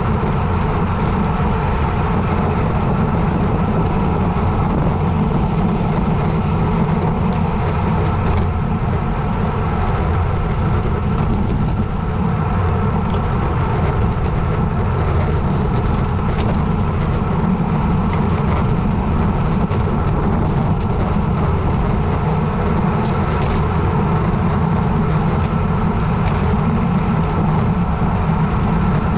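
Steady, heavy wind rush on the microphone of a bicycle descending a mountain road at speed, a loud low rumble with scattered faint clicks.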